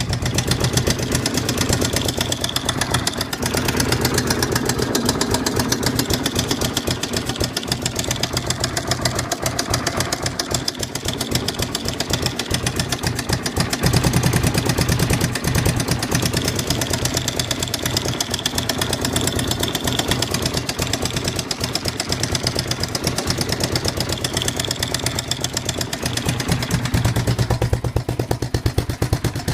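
Suzuki DR750's big single-cylinder four-stroke engine running at idle with a clattering knock in its beat, getting briefly louder three times.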